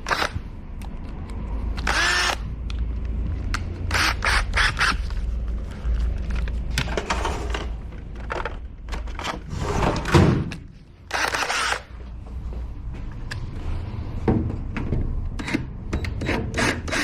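Hand tool working loose the car's 10 mm plastic weather-strip screws: separate bouts of clicking, rattling and squeaky plastic scraping every second or two, over a steady low hum.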